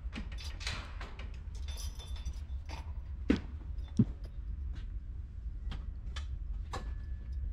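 A large louvred metal access door on an air-conditioning fan coil cabinet being unlocked and swung open: light clicks and key jingles, then two knocks about three and four seconds in, over a steady low hum.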